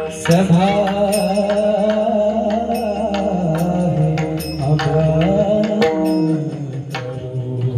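Marathi devotional song (abhang) with a voice holding long, gliding notes over drum and percussion accompaniment.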